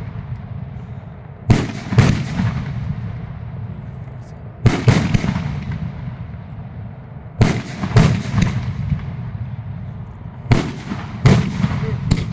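Fireworks going off in a steady sequence: loud bangs in pairs or threes about half a second apart, a group roughly every three seconds, each trailing off in crackle and rumbling echo.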